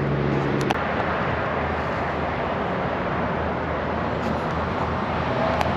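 Steady rushing noise of fast-flowing current against the hull, with the low hum of an electric trolling motor run at high power underneath. Two light clicks, one near the start and one near the end.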